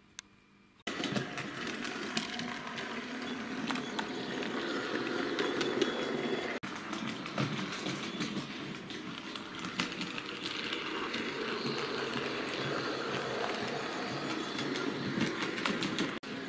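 Model train running along the layout's track after about a second of near silence: a steady rolling noise with frequent small clicks of the wheels over rail joints and points.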